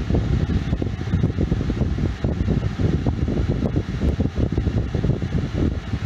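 hOmeLabs window air conditioner running with its fan on maximum, blowing cold air straight at the microphone: a loud, steady low rushing rumble that flutters unevenly.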